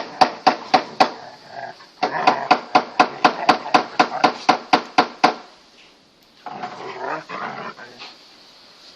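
Large Kangal-type dog barking in play, a fast run of sharp, evenly spaced barks about three a second with a short break, then rougher growling noises about six and a half seconds in.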